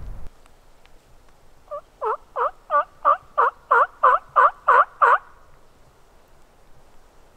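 Hen turkey yelping blown on a mouth call: a run of about eleven two-note yelps, roughly three a second, each breaking from a high note to a lower one and growing louder, starting a couple of seconds in. It is a locator call meant to strike up a gobbler.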